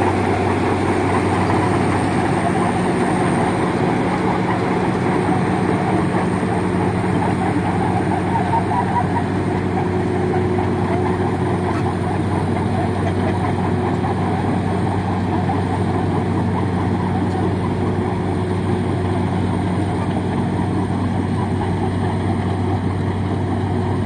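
Heavy diesel engine running steadily at a constant speed: an even, unchanging low hum.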